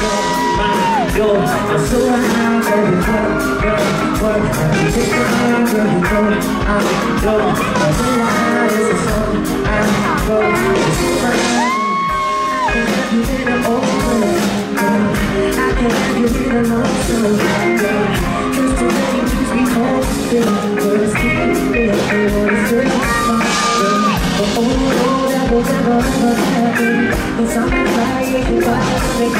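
A male singer sings live into a handheld microphone over loud amplified music, holding long notes now and then.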